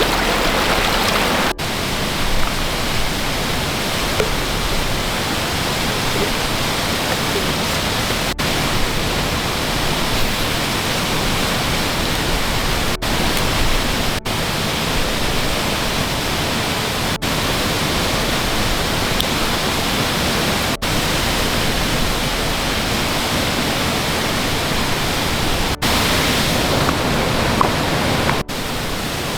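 Steady, dense rush of falling water from a waterfall, with brief dropouts and small shifts in level at several points where clips are joined.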